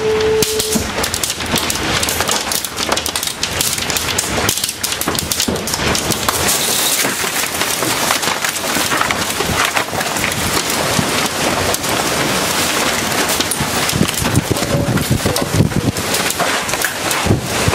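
Wind and heavy rain of an approaching tornado: a loud, steady rush full of constant crackling hits.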